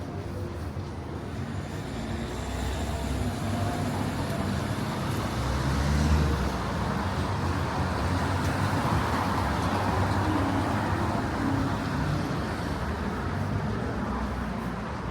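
Road traffic on a city street: a vehicle passes close by, its low engine rumble and tyre noise building to a peak around the middle and fading near the end.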